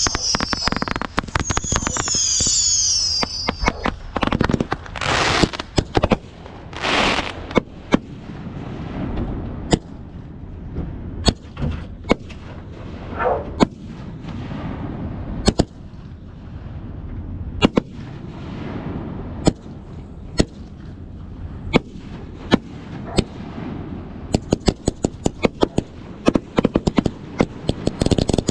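Fireworks going off: two whistles falling in pitch at the start, then a long, irregular run of sharp bangs and pops from bursting shells, coming quicker near the end.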